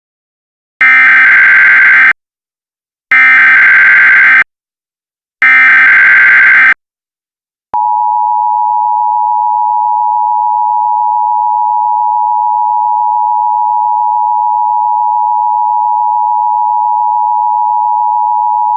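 Emergency Alert System tones: three bursts of warbling data tones, each over a second long (the SAME header), then, from about eight seconds in, the steady two-tone EAS attention signal.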